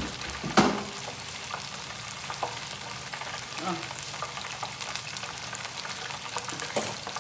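Battered seafood deep-frying in hot oil, a steady sizzle, with a sharp knock about half a second in and a short clatter near the end.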